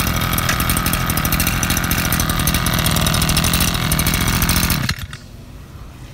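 Small petrol engine of a used Japanese brush cutter (grass trimmer) running loudly with a fast, even beat on a test start. It cuts off abruptly about five seconds in.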